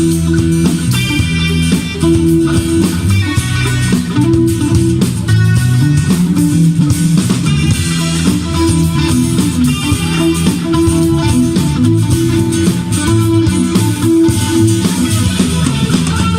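A band playing an instrumental passage led by guitars, with bass and drums underneath.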